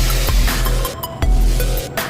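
Electronic background music with heavy bass pulses and a driving beat.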